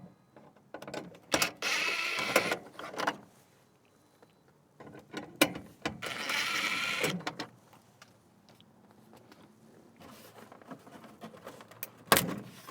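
Small cordless power driver running twice, about one and a half seconds each time, backing screws out of a plastic overhead console. Scattered clicks and knocks of brittle plastic come between and after the runs.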